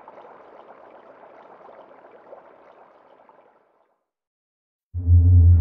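A faint, even, hiss-like noise fades out about three and a half seconds in. After a second of silence, loud music with a deep sustained low note starts abruptly near the end.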